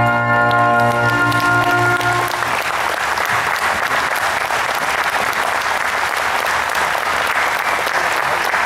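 The song's final held chord stops about two seconds in, and the audience breaks into loud applause.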